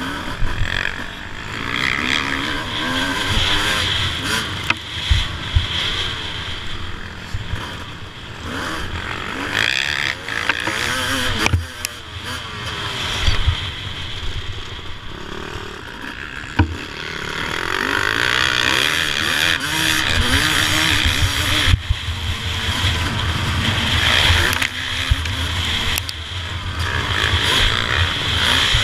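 A 2007 Suzuki RM 250 two-stroke motocross bike under hard riding. The engine revs rise and fall again and again through corners and straights. Sharp knocks come now and then from the bike over the bumpy dirt track.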